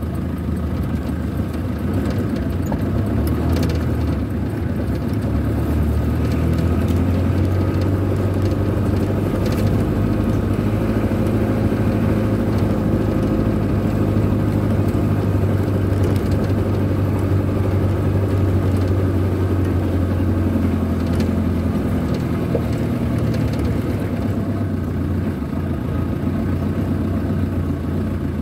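A vehicle engine running steadily while driving, heard from inside the cab as a low drone, with a few light rattles.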